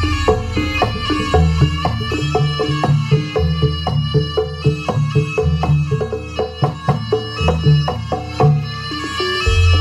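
Javanese jaranan gamelan ensemble playing at a lively pace: rapid hand-drum strokes over repeated pitched gong notes and a deep sustained gong bass, with a high melody line above.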